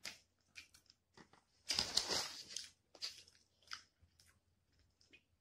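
Close-up mouth sounds of chewing fried chicken wings, with a louder spell of chewing about two seconds in and small scattered clicks.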